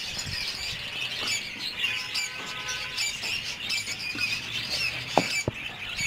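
A flock of budgerigars and lovebirds chattering continuously with high chirps and squawks, with a couple of sharp clicks a little after five seconds in.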